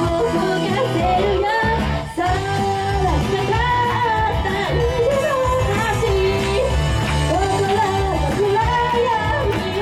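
A female idol singing live into a microphone over pop backing music with a steady bass beat; the music dips briefly about two seconds in.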